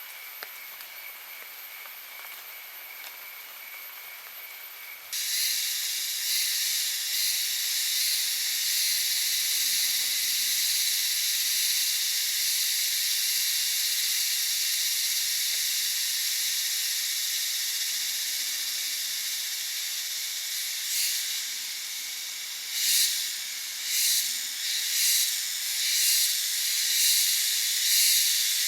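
Shrill insect chorus: a faint high hiss with two steady tones, then a loud high-pitched buzzing hiss that starts suddenly about five seconds in, pulsing in swells about once a second near the end.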